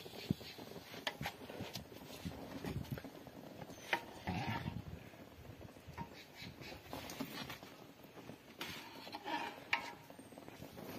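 Scattered clinks and knocks of a utensil against a metal wok as pamonhas are lifted out of the cooking water, over low rustling, with faint animal calls twice in the background.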